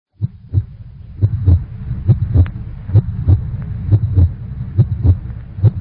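Heartbeat sound effect: paired low 'lub-dub' thumps a little over once a second over a steady low hum.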